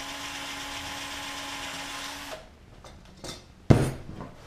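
Cordless drill running steadily for about two and a half seconds, drilling a rivet hole through a wing rib. About a second after it stops there is a sharp knock, the loudest sound, with a lighter click just before it.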